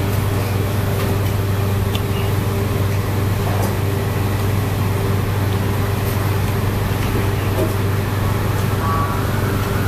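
A steady low hum of background machinery or traffic, even throughout, with a faint steady tone above it. Faint voices come in near the end, and there are a few small clicks.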